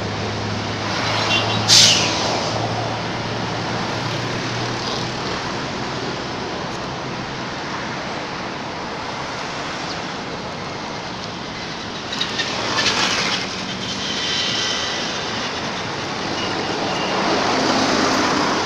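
Steady traffic noise with an engine hum in the first few seconds. Two brief louder noises stand out, a sharp one about two seconds in and another around thirteen seconds.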